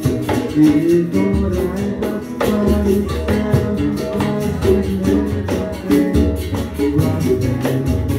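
Live acoustic band music: plucked guitars over a moving bass line, with hand percussion keeping a steady, even beat.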